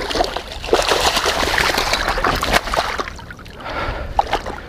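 Irregular splashing and sloshing of water as a hooked carp is brought in and landed at the river's edge, louder in the first three seconds.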